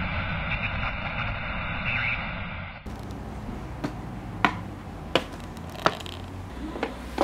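A steady hiss that cuts off about three seconds in, then footsteps: a person walking, each step a sharp click, about one every 0.7 seconds, over a low background hum.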